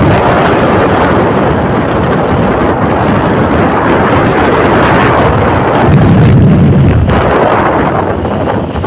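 Wind rushing over the microphone of a moving motorcycle, with the engine running underneath. The low engine sound swells louder about six seconds in for roughly a second.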